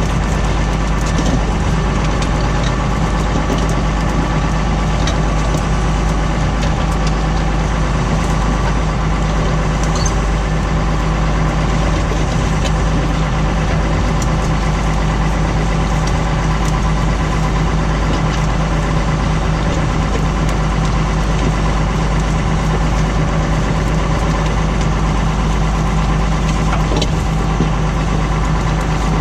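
Tractor engine running steadily while pulling a plough, with a deep, even rumble and a few faint rattles.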